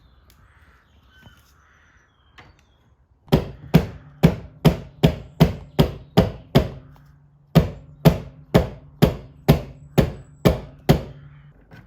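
Hammer blows struck at a steady pace of about two and a half a second, each leaving a short low ring: a run of about nine starting a few seconds in, a one-second pause, then about nine more.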